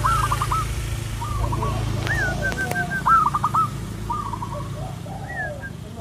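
Zebra dove (perkutut) cooing its staccato song: several phrases of quick hooked notes, the loudest phrase about three seconds in. A low steady hum lies underneath and fades after the middle.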